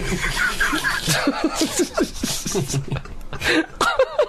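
Men in a fit of helpless laughter, a string of short rapid chuckles and giggles that breaks up a line being recorded.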